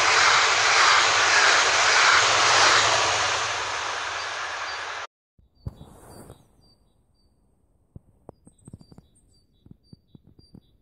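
DB class 442 Talent 2 electric multiple unit passing at speed close by: a loud, even rush of wheel and wind noise that stops abruptly about five seconds in. After it come faint scattered crunches and clicks and a faint high chirp repeated at even intervals.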